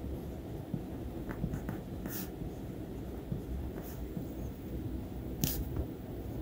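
Fine-tip Sharpie pen drawing wiggly lines on paper: a soft scratching of the tip, with a few short, sharper scratches, the sharpest about five and a half seconds in, over a steady low background rumble.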